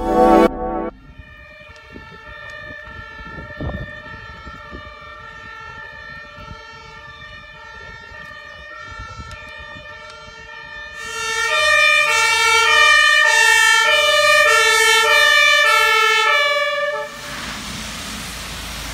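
German fire engine's two-tone siren (Martinshorn), alternating between two pitches. It is faint for about ten seconds, turns loud about eleven seconds in, and cuts off near the end, leaving a steady noise. A brief logo sting plays at the very start.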